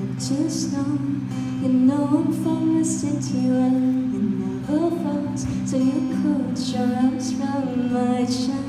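Woman singing with her own strummed acoustic guitar accompaniment, her voice amplified through a microphone.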